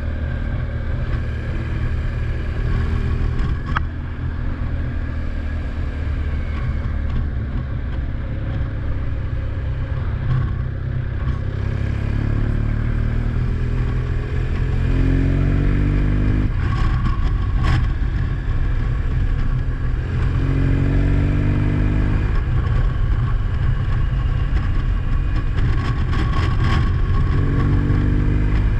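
A vehicle engine running with a steady low rumble. In the second half its pitch climbs and drops back three times as it accelerates, with a few sharp clicks.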